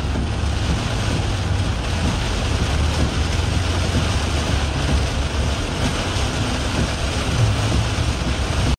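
Heavy rain on a moving car with steady tyre and road rumble, heard from inside the cabin.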